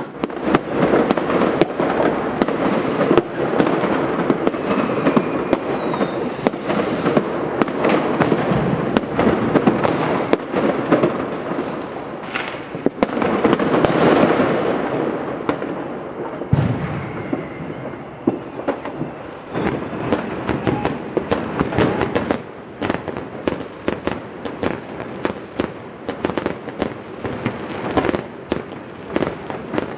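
Many fireworks going off at once: a dense, continuous barrage of bangs and crackling that thins after about twenty seconds into separate sharp bangs, several a second.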